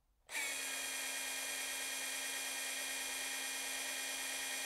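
Milwaukee M12 Fuel 2508 compact SDS-Plus rotary hammer running with no bit, a steady motor whine with the chuck turning at about 1,215 rpm. It starts about a third of a second in.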